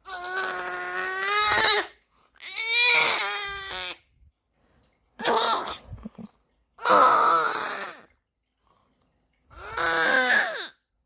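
Newborn baby's congested cough: five drawn-out, strained bouts with a wavering, cry-like pitch, each one to two seconds long, separated by short pauses. Newborns are said to cough this way when phlegm they cannot yet clear blocks the airway during a heavy cold.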